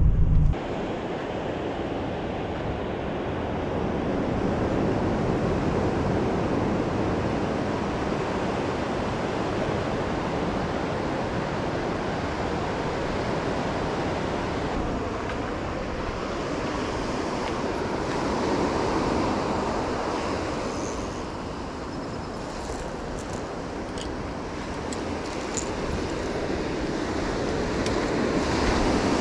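Ocean surf breaking and washing up a beach: a steady rushing that swells and eases as the waves come in.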